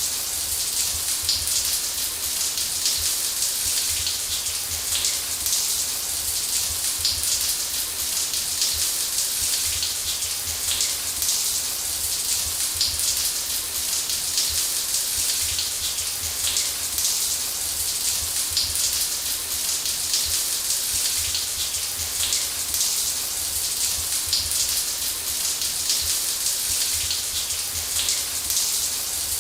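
Shower water running steadily, an even high hiss of spray with fine pattering.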